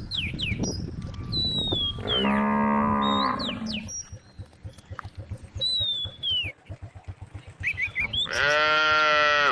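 Cows mooing: a long moo about two seconds in and another starting near the end, with short high whistling calls between them.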